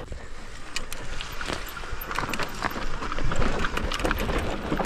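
Mountain bike rolling down a dry dirt trail: tyres running over dirt and roots, with many small clicks and knocks from the chain and frame rattling, over a low wind rumble on the action camera's microphone.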